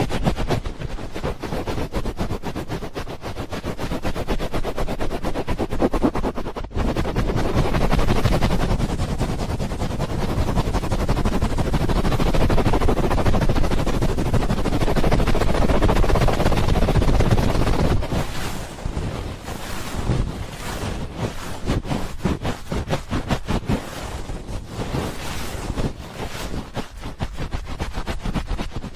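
ASMR "helicopter" ear rubbing: hands rubbing very rapidly over a binaural microphone's ears, giving a fast, continuous fluttering patter. The strokes ease off and come through more separately in the later part.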